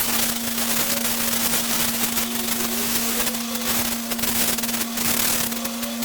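A high-pressure jet cleaning willow fluff and caked dirt out of a car radiator: a steady loud hiss with constant crackling as it hits the fins, over the steady hum of the machine driving it.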